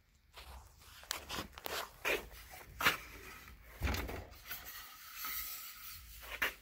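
Handling noise from a 1971 Buick Riviera grille being moved and turned over by hand on a quilted moving blanket. There is a run of light knocks and clicks, a heavier knock about four seconds in, then a scraping rub and a last knock near the end.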